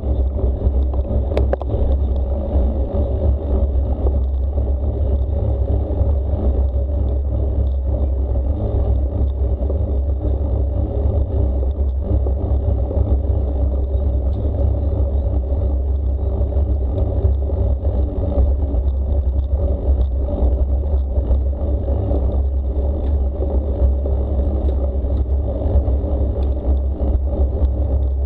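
Steady low rumble of wind and rolling noise picked up by the camera's microphone on a moving bicycle, with no distinct events.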